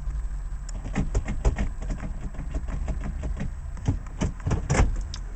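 A run of irregular clicks and knocks from handling a car's interior controls, over a low steady hum.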